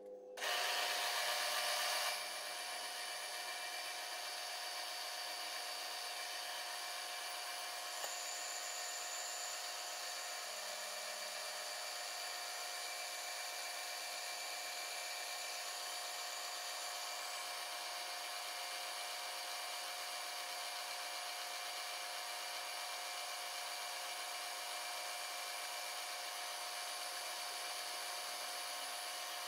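Milling machine running with an end mill cutting a counterbore through an aluminum fixture plate into the part: a steady mechanical whine of many fixed tones over a hiss. It is a little louder for the first two seconds, then holds even.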